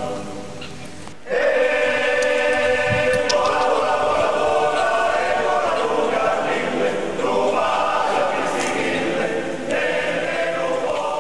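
A choir singing a cappella. One piece fades out and a new song enters suddenly about a second in.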